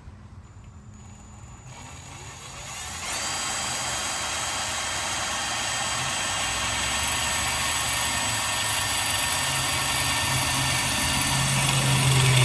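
Handheld drill boring a pilot hole into a stainless steel handrail, the bit cutting metal. The drill starts about two to three seconds in and then runs steadily, slowly getting louder as it works through the metal.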